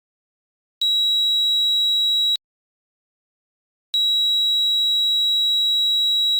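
Alarm circuit's buzzer sounding a steady, high-pitched tone twice: a beep of about a second and a half, then after a short silence a longer one starting about four seconds in.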